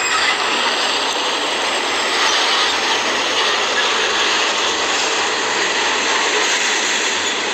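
Fuel tanker semi-truck moving along the road: a loud, steady rush of engine and tyre noise.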